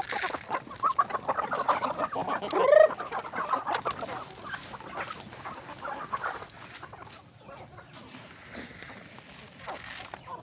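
A flock of native chickens clucking as they crowd and peck at feed, with many short ticks throughout. One loud rising squawk comes about two and a half seconds in, and the clucking thins out in the second half.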